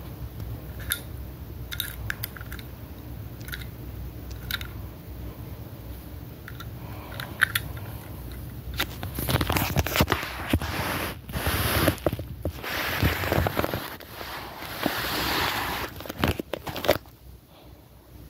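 Handling noise from a small die-cast toy van and the phone filming it on a fabric couch. Scattered light clicks come first, then about halfway through a longer stretch of rustling and scraping over the cloth.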